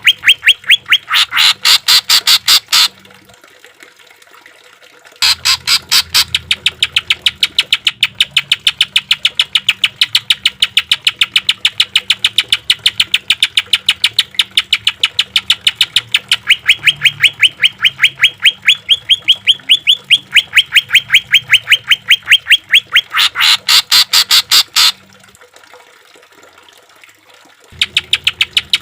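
Cucak ijo (green leafbird) singing a harsh rapid-fire 'tembakan' phrase: long bouts of sharp notes repeated evenly, several a second. The song breaks off for about two seconds near the start and again near the end.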